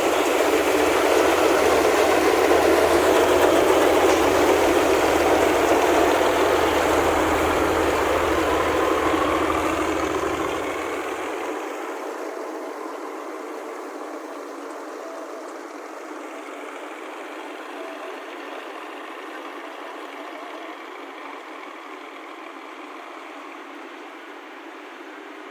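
Engine running steadily and loudly, fading after about ten seconds to a quieter, thinner steady noise.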